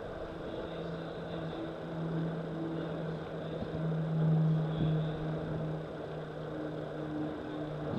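A distant engine humming at a steady low pitch, growing louder toward the middle and then easing off, over a steady background hiss.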